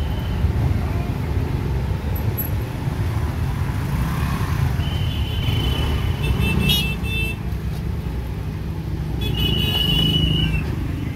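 Slow-moving street traffic: minibus and motorcycle engines running steadily, with high-pitched toots lasting a second or two about five seconds in and again about nine seconds in.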